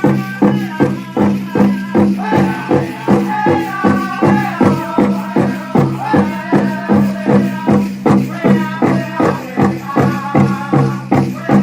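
Powwow drum group: a large drum struck in a steady beat of about two strokes a second, with voices singing over it.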